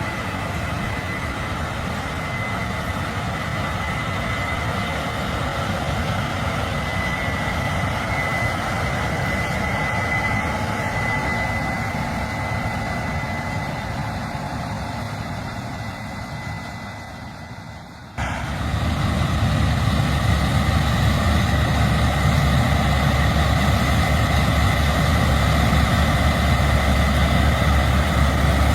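Case IH 8260 Axial-Flow combine running while harvesting corn: a steady engine and machinery drone with a thin high whine held through it. It fades over several seconds, then cuts abruptly about two-thirds in to a louder, deeper drone.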